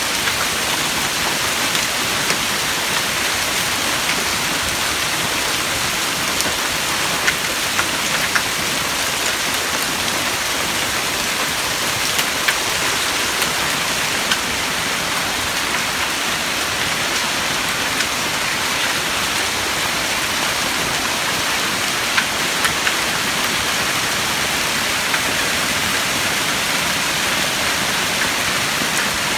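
Hailstones and heavy rain pelting hard surfaces in a dense, steady hiss, with scattered sharper clicks of individual stones striking.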